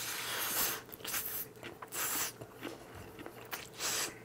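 Noodles being slurped and chewed: black-bean-sauce instant noodles drawn into the mouth in about four hissing slurps, the first the longest, with small wet clicks of chewing between them.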